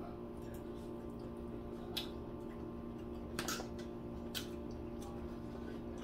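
Quiet eating sounds: chewing and smacking with a few sharp clicks of forks at the table, the loudest about two seconds in, over a steady background hum.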